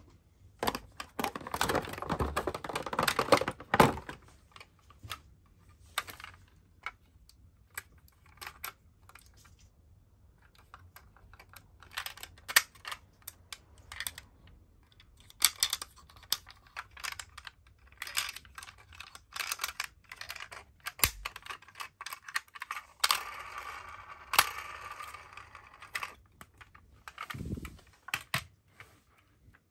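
Clear plastic packaging crinkling as a die-cast toy ambulance is handled, with many scattered clicks and taps from the toy's parts and from setting it down on a wooden floor. The crinkling is thickest for the first few seconds and comes back briefly near the end.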